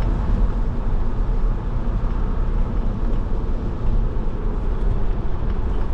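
Steady engine and tyre road noise of a car driving, heard from inside the car.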